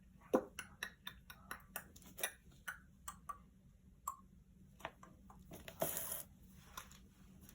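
Light, irregular clicks and taps of a container and utensils being handled while powdered buttermilk is added to the marinade, with a brief rustle about six seconds in.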